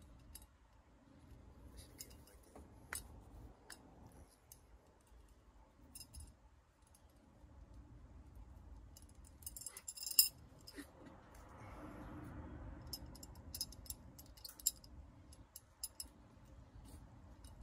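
Faint clicks and small metallic clinks from a large metal belt buckle being handled and fitted onto its belt strap, with a sharper cluster of clicks about ten seconds in.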